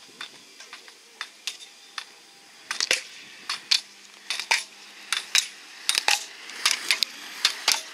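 Sharp plastic clacks, about one or two a second, from an inline slalom skater knocking the slalom gate poles on the way through the course. They start faintly and grow louder from about three seconds in, as the skater comes closer.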